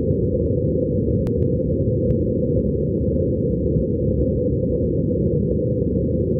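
Steady, loud low rumbling noise with nothing above a low pitch, and two faint clicks about one and two seconds in.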